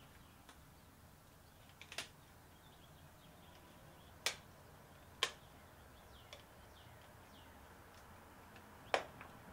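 Red plastic bus bar cover snapping onto the terminals of a stack of Nissan LEAF battery modules as gloved hands press it down. Four separate sharp clicks are spread over several seconds, the last the loudest, as its clips seat.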